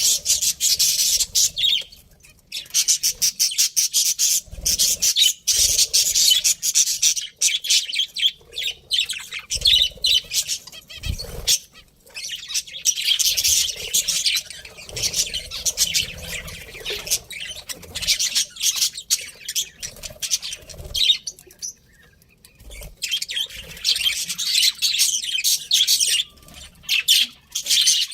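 Pet budgerigars chattering and chirping rapidly, high-pitched, in long runs broken by a few short pauses. There are a few soft low thumps in between.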